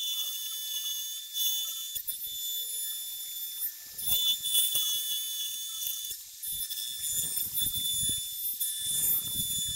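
Compact trim router running with a steady high whine while its straight bit cuts grooves in an oak board. The cutting noise swells about four seconds in and again over the last few seconds.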